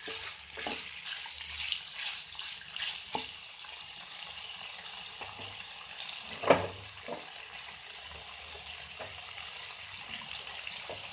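Raw chicken pieces, onions and carrots sizzling in hot oil in a frying pan, with a steady hiss. A spatula scrapes and knocks against the pan a few times in the first three seconds, and there is one sharp knock about six and a half seconds in.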